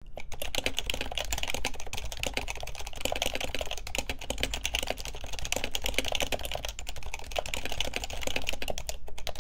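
Computer keyboard typing: a fast, continuous stream of key clicks.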